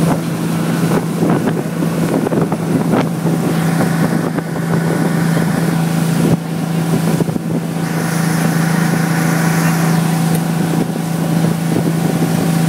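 Motorboat engine running steadily at speed while towing a parasail, a constant drone, with wind buffeting the microphone.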